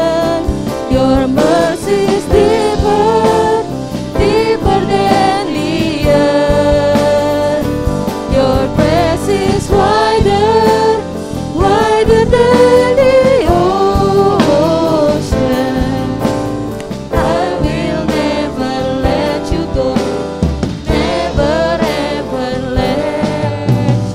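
Live praise-and-worship song: several voices singing together in English over a band of acoustic guitar, electric bass, drum kit and keyboard.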